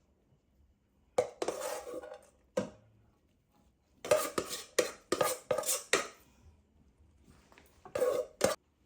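Dishes and cutlery clattering and clinking in three short bouts: about a second in, a longer run of knocks from about four to six seconds, and again near the end.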